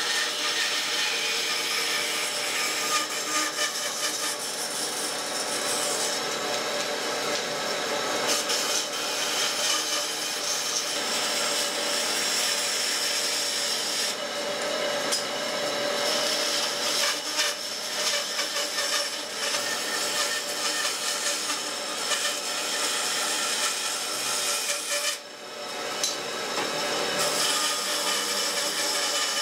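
Bandsaw cutting through thick wooden blocks: the blade running steadily with a continuous sawing hiss over the machine's hum. The sound briefly drops away a few seconds before the end.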